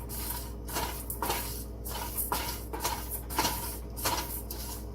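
A spatula stirring seeds, lentils and garlic pods roasting in a pan: a scraping swish a little under twice a second, over a low steady hum.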